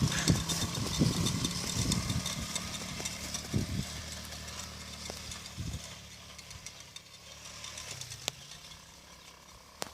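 ATV (quad bike) engine running at low revs with a steady note, slowly growing fainter as the quad moves off.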